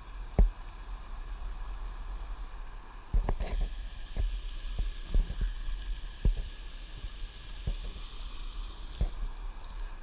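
Irregular knocks and thumps, loudest about half a second in and in a cluster around three and a half seconds, over a steady hiss of flowing river water.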